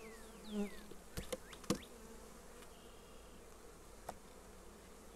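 Honey bees buzzing in a steady hum around an open hive box just stocked from a package. A few sharp knocks about a second in and another near the end, as wooden frames are set down into the box.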